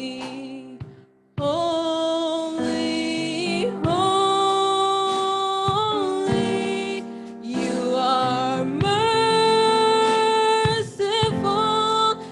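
Gospel worship music: a voice sings long held notes over an instrumental backing, with a brief drop-out about a second in.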